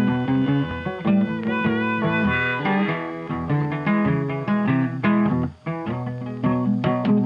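Background music led by guitar, with a steady run of notes and a brief break about five and a half seconds in.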